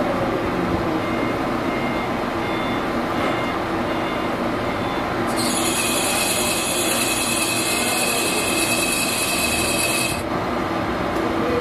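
Metal lathe running steadily while turning a fountain nozzle. About five seconds in, the cutting tool bites the workpiece with a high-pitched metal squeal that holds for about five seconds and then stops suddenly.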